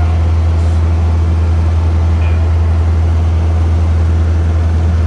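An engine running steadily at a constant speed, a loud, even low drone that does not rise or fall.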